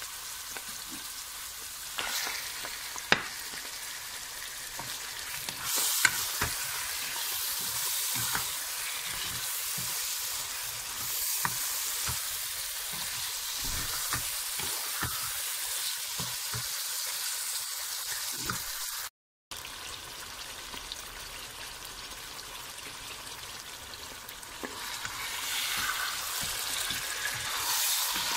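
Chicken curry sizzling in hot oil and masala in a pan, stirred with a wooden spatula, with a few sharp knocks in the first seconds. The sound breaks off for a moment about two-thirds of the way through, and the sizzle grows louder near the end.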